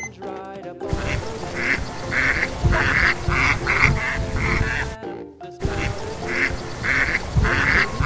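Duck quacking sound effect, a quick run of repeated quacks that breaks off about five seconds in and starts again at once, over light background music.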